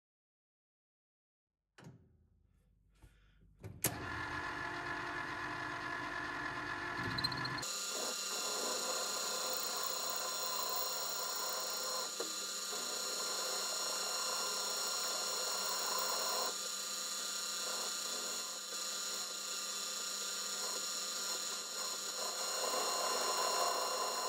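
Metal lathe running: after near silence and a click about four seconds in, the spindle motor and gearing run steadily with several high steady whining tones. The sound changes character about eight seconds in and then holds steady.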